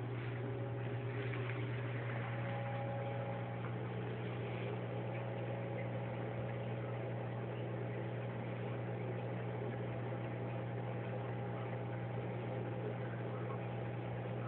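Steady low hum over a faint hiss, with no distinct events.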